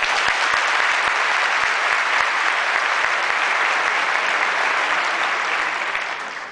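Large crowd applauding steadily, clapping in a dense wash, dying away near the end.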